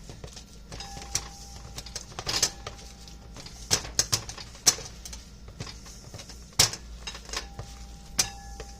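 A utensil clinking and scraping against a bowl in sharp, irregular knocks while mashing and stirring potato filling for twice-baked potatoes.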